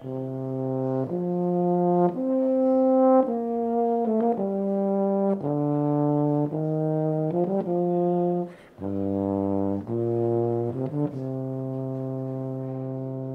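Euphonium practice: a slow melody played one sustained note at a time, with a short break for breath about two-thirds through, ending on a long held note.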